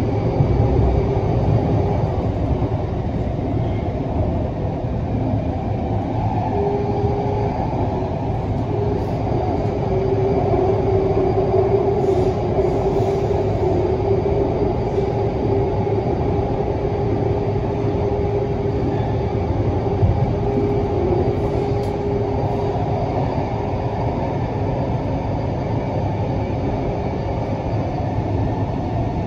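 Canada Line SkyTrain car running through a tunnel, heard from inside the car: a steady rumble of wheels on rail with a whining tone over it that fades near the end.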